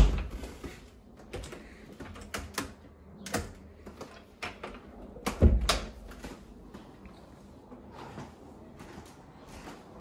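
Interior doors being shut: a heavy thud as the start, then scattered clicks and knocks, and a second heavy thump about five and a half seconds in.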